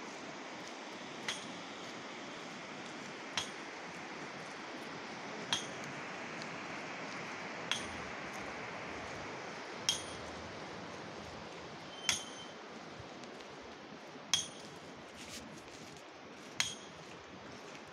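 A short, ringing clink, repeating evenly about every two seconds, over a steady background hiss.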